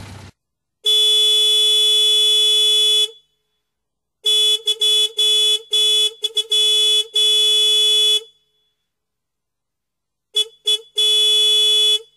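A horn honking in separate blasts on one steady pitch: a long blast of about two seconds, then a run of short and long honks, then two quick honks and a final long one.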